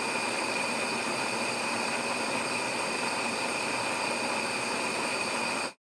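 Steady mechanical rushing noise with a thin high whine running through it, cutting off abruptly near the end.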